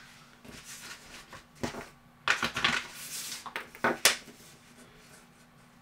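Samsung Galaxy Watch 3 handled as it is lifted out of its box and set down on a table: a few brief rustles and scrapes, a longer scraping rub in the middle, and a sharp clack about four seconds in, the loudest sound.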